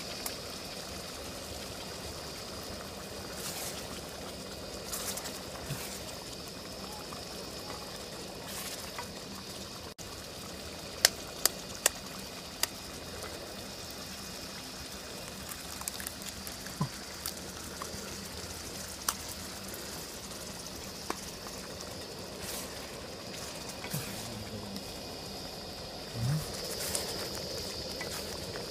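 Tomato-based duck egg curry simmering and bubbling in a pan over a portable gas stove, under a steady hiss. Scattered sharp taps, a quick cluster of them about a third of the way in, as duck eggs are cracked on the pan and dropped into the curry.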